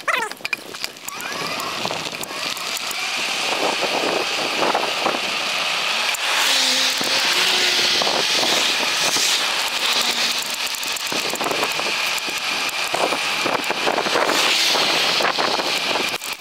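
Steady rush of wind on the microphone while moving along a road shoulder, mixed with tyre and traffic noise from cars on the highway.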